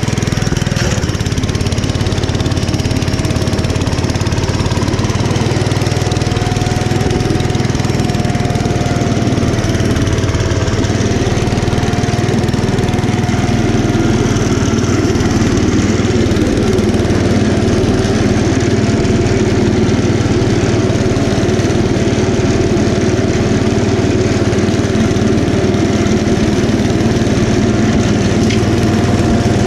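Kohler K241 10 hp single-cylinder engine of a 1972 Gravely Commercial 10A walk-behind tractor running steadily under load while its snowblower throws snow. A faint wavering whine sits over the engine's steady drone.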